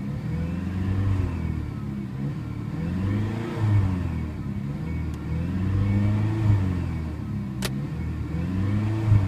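2002 Dodge Stratus 2.4-litre DOHC four-cylinder engine, heard from inside the cabin, revved up and let fall back about four times, each rise and fall smooth and even. The revving is smooth, a sign of a healthy engine.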